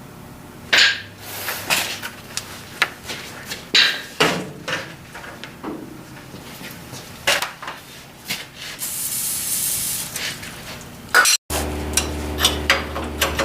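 Hand tools knocking and clanking against metal in scattered, irregular strikes, with a spray-like hiss for about two seconds partway through. After a sudden break in the sound, a steady low hum sets in.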